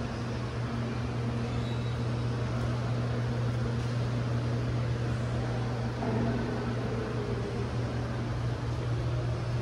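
Steady low mechanical hum over an even background hiss, constant throughout with no breaks.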